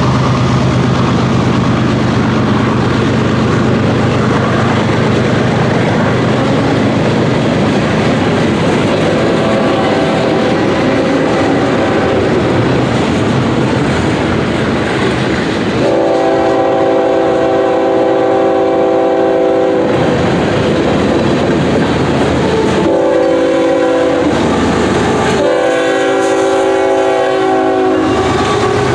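Long freight train of hopper and tank cars rolling past close by. A diesel locomotive's multi-chime horn then sounds a long blast a little past the middle, followed by two shorter blasts near the end, as the trains approach a grade crossing.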